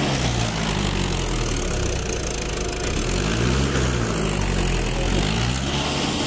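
John Deere 5405 tractor's diesel engine working hard under load, its pitch rising and falling several times as it strains on a tow rope to pull a stuck tractor free.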